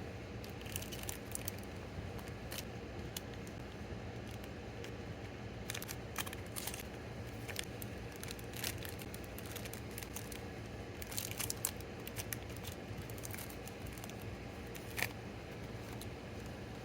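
Hands packing orders: plastic and paper packaging crinkling and rustling, with scattered light clicks and taps over a faint steady hum.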